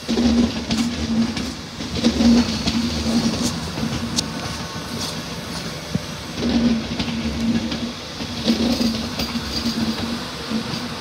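Mark 4 passenger coaches rolling past on the adjacent track. Wheels and bogies make scattered sharp clicks over the rail, under a low hum that swells and fades several times.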